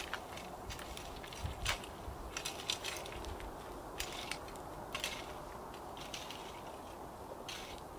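A trail rake scraping over loose dirt and twigs in irregular repeated strokes.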